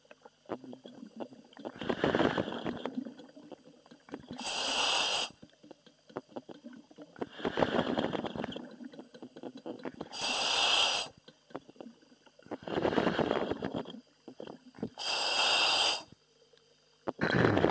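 A commercial diver breathing in a diving helmet, heard over the diver's intercom. A bright, hissing rush alternates with a rougher, lower one every two to three seconds, with short quiet gaps between breaths.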